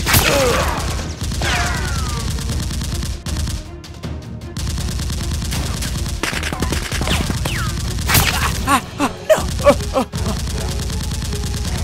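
Rapid gunfire sound effects over background music, with a man crying out several times near the end.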